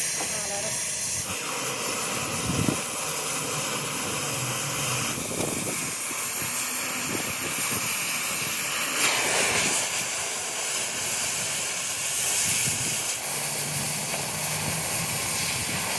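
Steady hissing noise from metalwork, changing in pitch and strength every few seconds.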